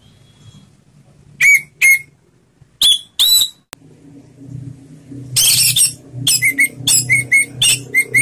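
Orange-headed thrush (anis merah) singing a loud, full ngeplong song of sharp whistled notes. It gives two pairs of notes, then a longer burst about five seconds in and a quick run of about eight short notes near the end.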